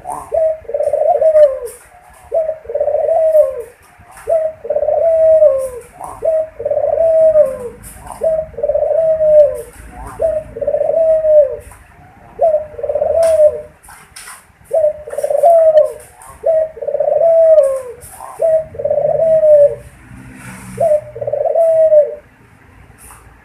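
Puter dove cooing over and over at close range. It gives short arched coos at about one a second, with a brief break near the end.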